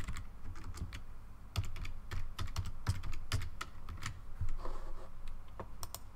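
Computer keyboard typing: irregular runs of key clicks with short pauses.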